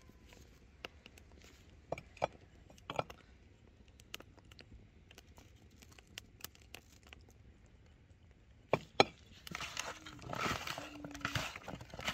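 Bare hands squeezing and mixing cubed tongue with kiwi pieces in a plastic bowl: wet squishing and rustling from about nine and a half seconds in. Before that there are only scattered faint clicks, then two sharp knocks just before the mixing starts.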